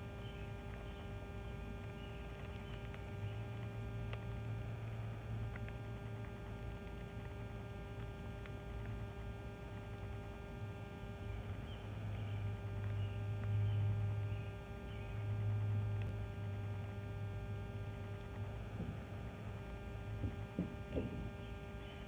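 Steady low hum with faint higher tones above it, swelling louder through the middle and dropping back near the end.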